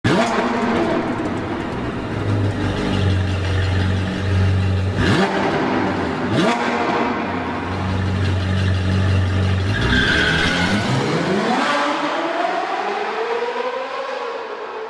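BMW E30 engine running at a steady note, with two quick revs about five and six seconds in. From about ten seconds the pitch climbs as the car accelerates, then eases back down near the end.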